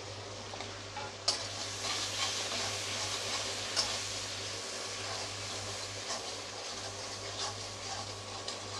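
Tomato and spice masala sizzling in hot oil in a metal kadai while a metal spatula stirs it, with a steady sizzle and a couple of sharp taps of the spatula against the pan.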